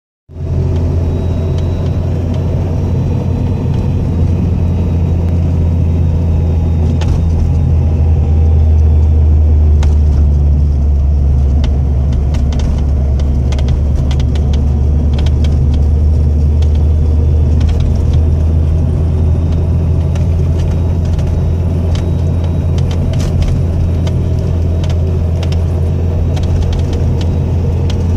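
Lada Priora engine running steadily at idle, with sharp knocks under the bonnet heard at irregular moments from about seven seconds in. The cause of the knock is unknown.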